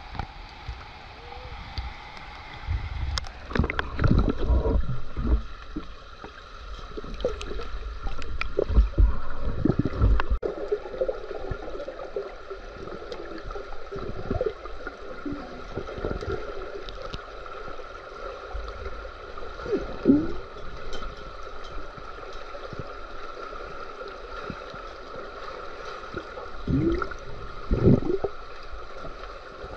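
Pool water gurgling and churning with bubbles, heard underwater, in irregular bursts over a steady hum.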